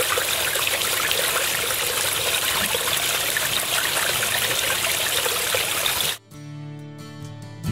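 Water trickling and splashing steadily over stacked stone ledges. It cuts off abruptly about six seconds in, and soft guitar music begins.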